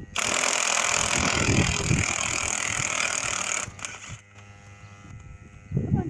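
Cordless impact wrench hammering on a lug nut of a skid steer wheel for about three and a half seconds, then stopping.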